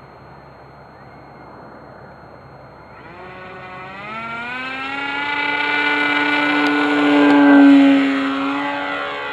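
Twin-motor foam-core RC airplane throttling up for takeoff: its motor and propeller whine starts about three seconds in, rises in pitch and grows louder as the plane lifts off and passes close, and is loudest near the end, dropping slightly in pitch as it goes by.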